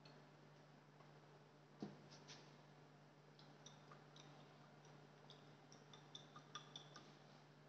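Near silence with a faint steady hum. A soft knock comes a little under two seconds in, as the plastic wash bottle is set down. Faint light ticks follow in the second half as a glass test tube of water and glucose is shaken to dissolve the sample.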